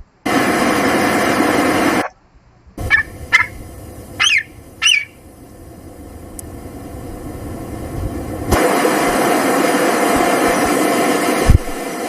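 A bird calls four times in short, rising-then-falling squawks over a low background hiss. Before and after the calls, loud steady noise fills the sound, starting and stopping abruptly.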